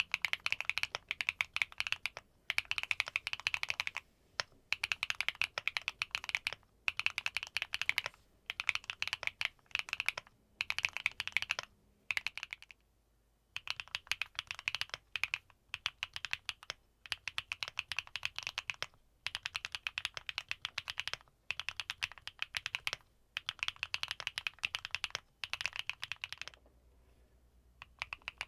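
Typing test on a Neo65 mechanical keyboard fitted with HMX linear switches: fast runs of clacky keystrokes in bursts of a second or two, separated by short pauses, with a longer pause near the end.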